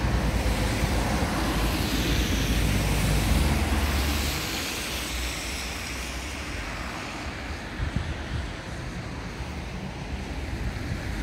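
Road traffic on wet roads: a vehicle goes by close for the first four seconds or so, a tyre hiss over a low rumble, then the sound eases to a quieter steady hiss.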